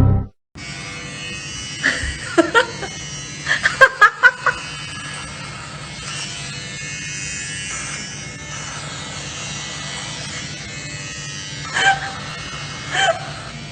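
Steady electric buzzing like a small motor, with short high cries: a couple about two seconds in, a quick run of them around four seconds, and two more near the end.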